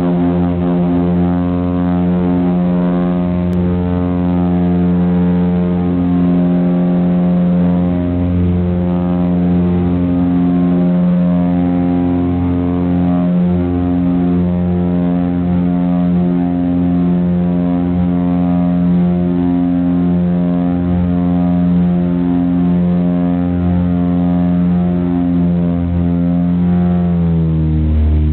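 Light propeller aircraft's engines and propellers running at takeoff power, a loud steady drone heard inside the cabin through the takeoff run and climb-out. Near the end the pitch slides down and settles lower as power is eased back after takeoff.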